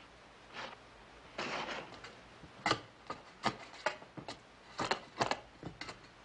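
Digging into a basement floor by hand: a long-handled digging tool strikes and scrapes into dirt and rubble in a string of irregular sharp hits, about ten in all.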